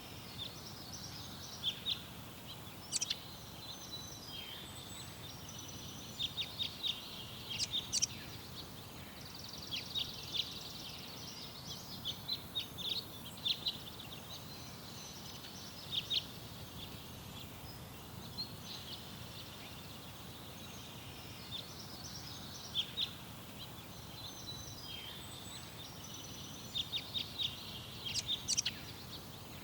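Garden birds chirping and singing in short, scattered high calls and trills, with bursts of several notes in quick succession, over a steady low background rumble.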